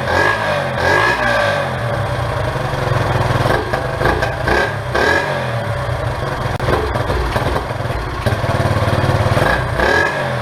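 1970 Honda SL100's small single-cylinder four-stroke engine running with the throttle blipped up and down, its freshly cleaned and reinstalled carburettor now letting it run.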